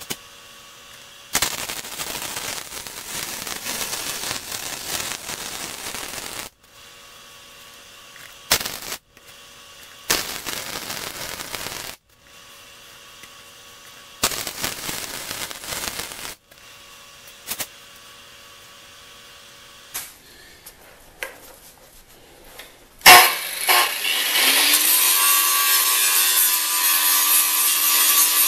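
MIG welder laying short tack and stitch welds on a steel frame rail: about five bursts of crackling arc, some a couple of seconds long and some brief, with pauses between them. Near the end a Hitachi 9-inch angle grinder starts, winds up to speed and runs loudly, grinding the welds.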